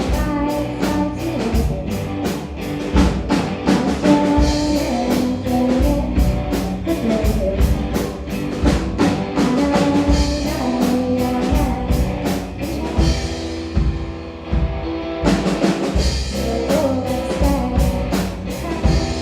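Small indie-pop rock band playing live: a steady drum-kit beat with guitar and bass. The drums drop out for about two seconds near the end, then come back in.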